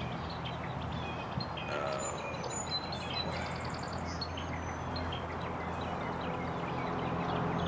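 Birds chirping, many short high calls scattered throughout, over a steady low hum.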